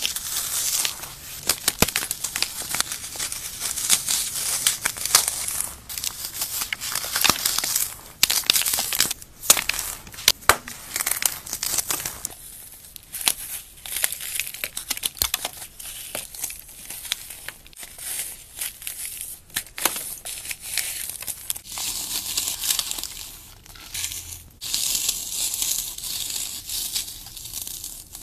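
Paste-coated floral foam crushed and crumbled by hand: a dense run of crisp crunching and crackling with frequent sharp cracks.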